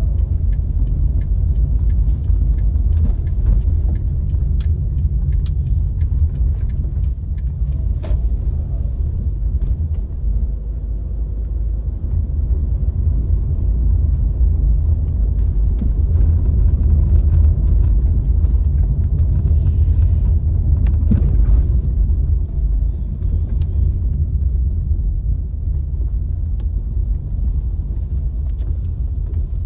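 A car driving: a steady low road and engine rumble, with scattered short clicks and knocks.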